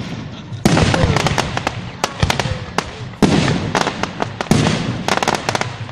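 Fireworks exploding: a series of loud bangs, each trailed by crackling, with the heaviest bursts roughly a second apart.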